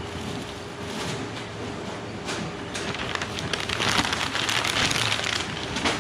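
Print-shop paper-handling machine running with a dense, rapid rattle of fine clicks, louder from about three to five and a half seconds in.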